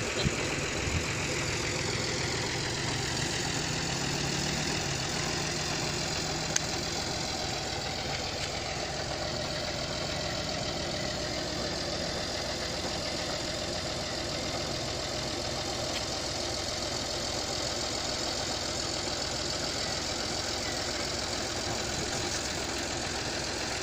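An engine running steadily, with a single sharp click about six and a half seconds in.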